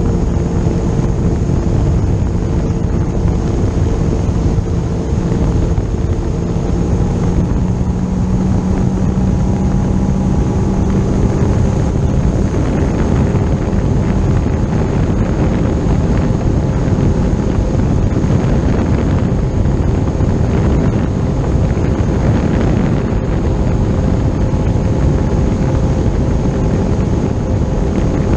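Boat running at high speed on cruise: steady engine drone under heavy wind noise on the microphone, with water rushing past the hull. The engine pitch shifts slightly a few times.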